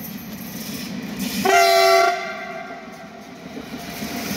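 Electric multiple-unit passenger train sounding its horn once, a short, loud blast of about half a second, over the steady rumble of the approaching and passing train.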